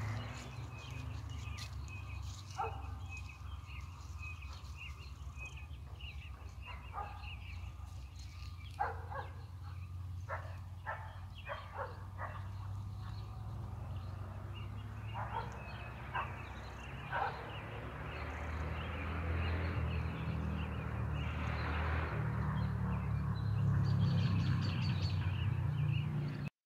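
Outdoor ambience on a windy spring day: a steady wind rumble on the microphone that swells into a louder rush over the last several seconds, with faint bird chirps and a scattering of short sharp sounds, several in quick succession around the middle.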